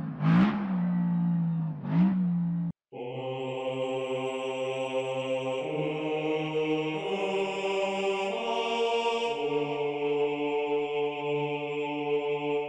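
Aston Martin DB9 V12, fitted with performance headers, sports catalysts and exhaust, revs twice in two sharp blips; the engine sound cuts off abruptly about three seconds in. The rest is chanting music: a mantra-like vocal drone of held notes that shift in steps.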